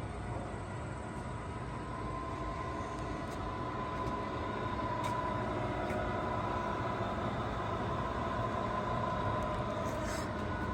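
Steady mechanical background hum with a constant high whine and a few faint clicks; the lathe itself is not running.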